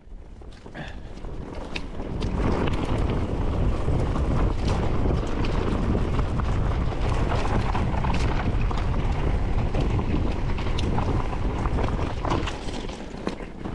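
Wind buffeting the microphone over a steady low rumble, with scattered light clicks and rattles throughout.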